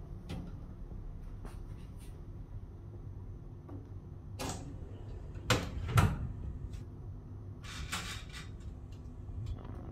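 Small Morphy Richards oven toaster grill being loaded: a metal baking tray slid onto the rack with light clicks and knocks, then the hinged glass door swung shut with a loud double clack and thump a little past the middle. A few smaller clicks follow near the end as a control knob is turned.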